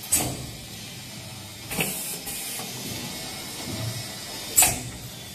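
NER2D-2 2D CNC wire bending machine working through its bending cycle: mechanical whirring and clicking broken by three short, sharp hissing bursts, the loudest near the end.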